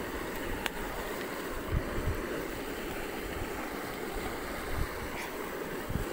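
Riverbank ambience: a steady wash of flowing river water, with wind buffeting the microphone in low gusts and a couple of faint clicks.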